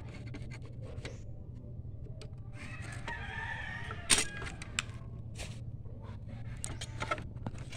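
A rooster crowing once in the background, lasting about a second and a half near the middle, over a steady low hum. Just after it comes a sharp click, the loudest sound, then a few lighter clicks of metal tools working at the printer's springs and frame.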